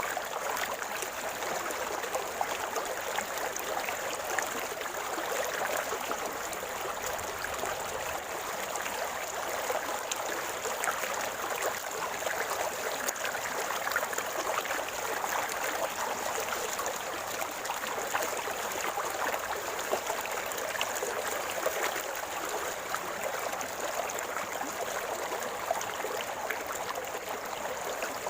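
River water flowing steadily over rocks, a continuous gurgling with many small splashes.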